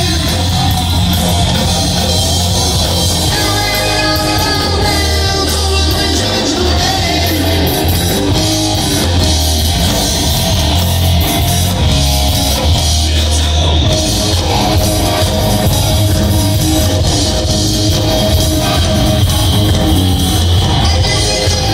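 Live rock band playing at full volume, electric guitar to the fore over drums and bass.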